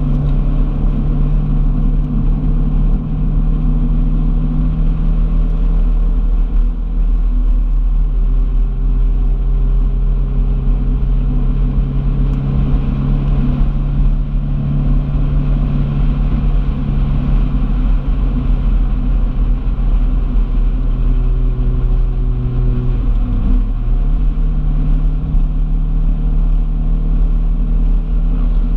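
Car being driven: the engine runs steadily under a heavy low road rumble. Its note drops about eight seconds in, and late on it dips briefly and then climbs back to its earlier pitch.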